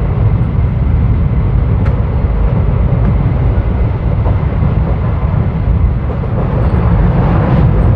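Passenger train running at speed, heard from an open coach door: a steady rumble of wheels on the track with wind buffeting the microphone, and one brief sharp click about two seconds in.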